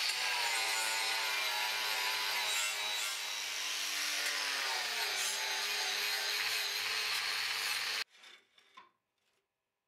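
Handheld angle grinder with an abrasive disc running against a flat steel bar, cleaning the surface of 1080 and 15N20 steel before pattern welding: a steady motor whine with grinding noise, the pitch sagging for a couple of seconds as the disc is pressed harder. It stops abruptly about eight seconds in.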